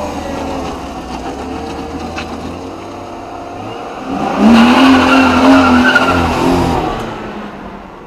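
BMW E36 sedan's engine running as the car pulls away, then about four seconds in, revving hard with the tires squealing for about two and a half seconds before fading as the car drives off.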